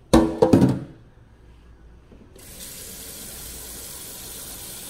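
Kitchen tap running a steady stream of water into a pot of cut beef skin pieces, starting about two and a half seconds in after a brief spoken phrase.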